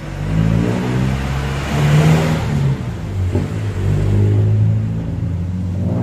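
A motor vehicle engine running and revving close by, its pitch rising and falling, with a rush of noise that is loudest about two seconds in.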